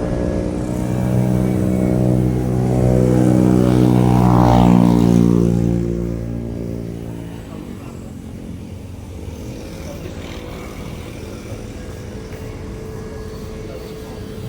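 A passing engine with a steady hum of many tones. It builds to its loudest about four to five seconds in, then fades away by about seven seconds, leaving steady background noise.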